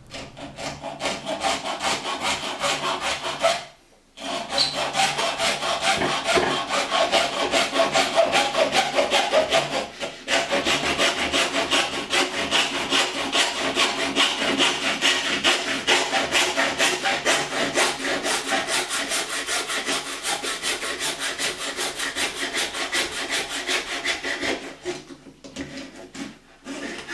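Hacksaw cutting through the hard plastic housing of an air freshener with quick back-and-forth strokes. It pauses briefly about 4 and 10 seconds in and stops near the end.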